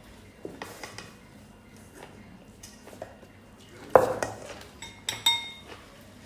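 Cutlery clinking and scraping on plates and bowls during a meal, with scattered small taps, a sharp knock about four seconds in, and two ringing clinks just after five seconds.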